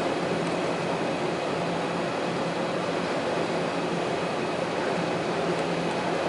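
Mobile cranes' engines running with a steady drone and a faint low hum.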